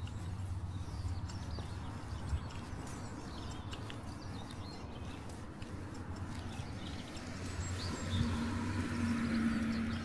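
Footsteps of a person walking at an even pace, with small birds chirping now and then. About eight seconds in, a vehicle comes closer with a steady engine hum, and the sound gets louder.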